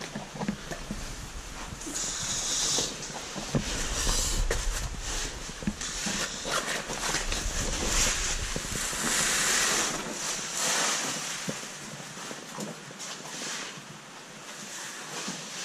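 Cavers clambering through wet boulders in a cave: irregular scuffs, knocks and rustling of overalls against rock, over a rushing hiss of water, loudest through the middle of the stretch.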